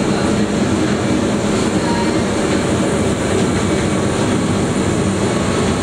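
Monte Generoso rack railway car climbing the mountain, heard from inside through an open window: a steady, loud rumble and rattle of the running gear and rack drive.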